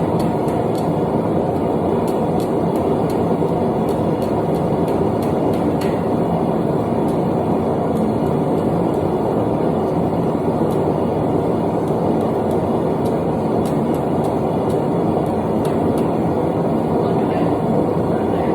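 Propane forge burner running steadily: a loud, even rushing noise that does not change.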